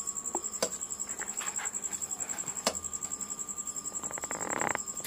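Steel serving spoon clinking and scraping against a steel kadai and bowl as curry is served: a few light clinks, then a quick rattling scrape near the end. A steady high pulsing trill runs underneath.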